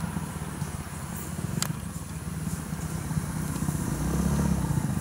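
A motor vehicle engine running steadily at low revs, its hum swelling about four seconds in.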